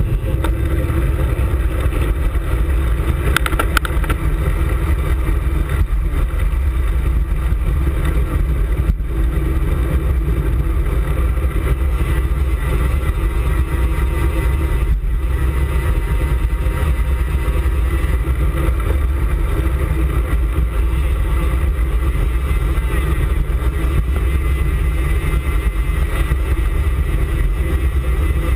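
Steady wind noise over a handlebar-mounted camera's microphone as a road bike rolls along at speed, mixed with road noise from the bike.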